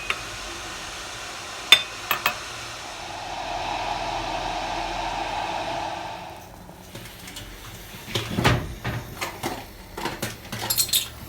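A steady rushing noise for about six seconds with a sharp click early in it, then a run of irregular clinks and knocks of hard household objects being handled.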